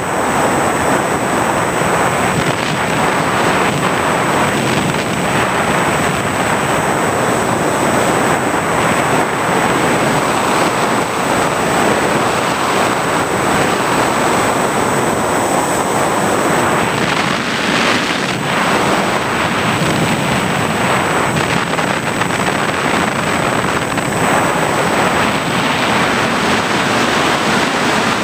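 Onboard audio of an FPV model aircraft in flight: a steady rush of wind on the camera's microphone mixed with motor and propeller noise, with a thin, steady high whine.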